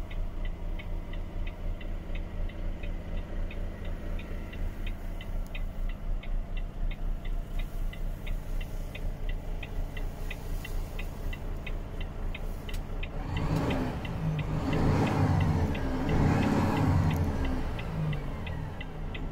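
Volvo FH 540 truck's 13-litre straight-six diesel idling, heard from inside the cab, with the hazard-warning flasher ticking steadily about three times a second. About two-thirds of the way through, a louder rushing noise swells up twice, then dies back to the idle.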